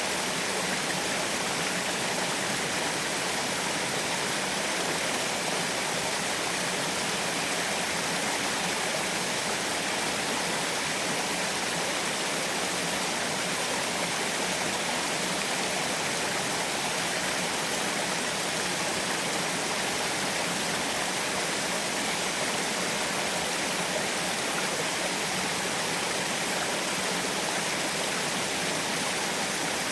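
Small waterfall splashing steadily, an even rushing of falling water with no change over time.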